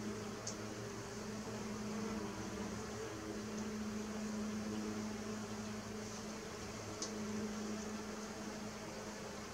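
Mason bees buzzing in flight, a low hum that comes and goes and shifts a little in pitch as bees fly in and out. Two faint short ticks, about half a second in and near seven seconds in.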